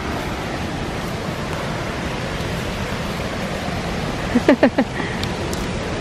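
Steady rushing of a waterfall heard through the forest, an even hiss-like roar of falling water. About four and a half seconds in, a quick run of four short, sharp chirps cuts through it.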